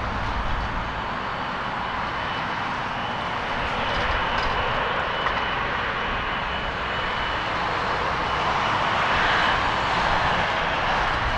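Boeing 777-200ER's twin GE90 turbofans running at taxi power: a steady jet rush with a thin, steady high fan whine on top, growing a little louder about eight to ten seconds in as the airliner rolls closer.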